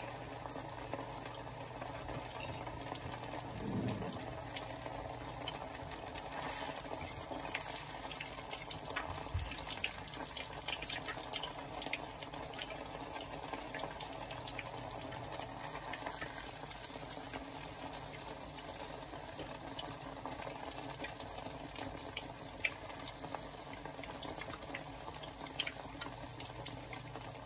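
Egg-battered tortilla halves frying in hot oil in a pan, a steady sizzle, with occasional light clicks of a metal spoon and fork against the pan as oil is ladled over them and they are turned.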